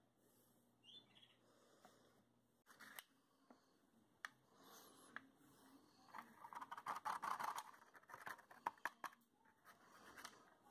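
Near silence with faint, scattered clicks and light rustling as a plastic spoon pushes shells and gravel around in a glass jar of water.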